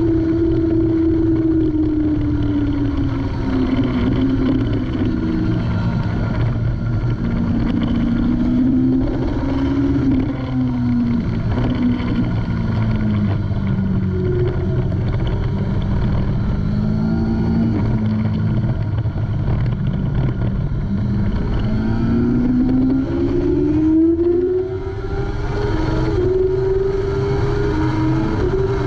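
Kawasaki ZX-6R 636's inline-four engine running hard on track. The revs fall over the first few seconds as the bike slows for a corner, stay lower and step up and down through the middle, then climb steadily near the end as it accelerates onto the straight.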